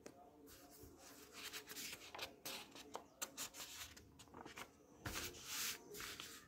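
Paper pages of a printed exam booklet being turned and rustled by hand: a quick string of crisp rustles, with a longer, louder rustle about five seconds in as the sheet is laid flat.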